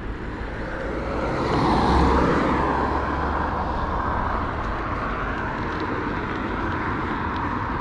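Steady riding noise from a bicycle on the move: wind rumble on the camera's microphone and tyre noise on the road. It swells about two seconds in, then holds steady.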